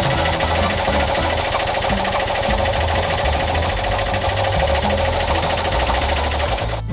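Fiat 500's small air-cooled two-cylinder engine idling with a fast, even mechanical clatter; it cuts off abruptly just before the end.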